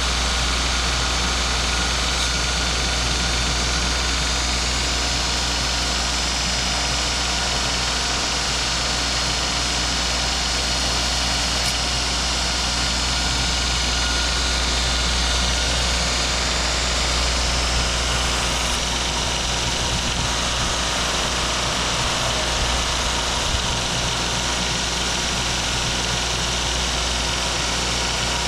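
Electric knife-sharpening machine running steadily, a motor hum with a wide grinding hiss over it.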